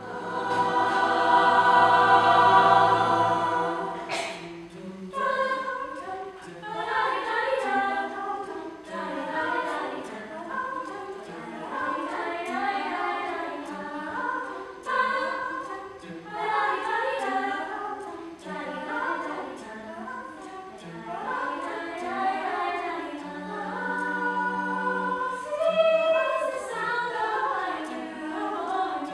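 Mixed choir of men's and women's voices singing a cappella. It opens on a loud held chord for about four seconds, then moves into a rhythmic passage of changing chords.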